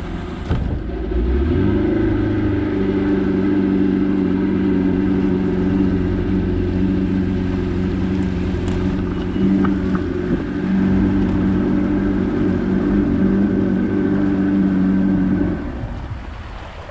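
A motorboat's inboard engine throttling up about a second or two in, then running steadily under way, before dropping off near the end.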